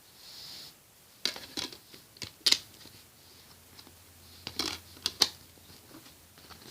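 Plastic DVD case and disc being handled: a string of sharp plastic clicks and snaps, about half a dozen, as a disc is worked off the case's centre hub. A brief soft rustle comes at the start.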